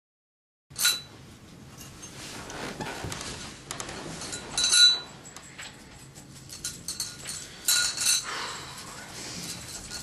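Clinking of tableware: a few sharp, ringing clinks over a low background, starting abruptly just under a second in, with the loudest about five seconds in and two more around eight seconds.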